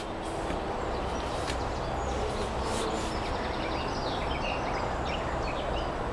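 A small bird singing a rapid run of high chirps from about three and a half seconds in for a couple of seconds, over a steady low outdoor rumble.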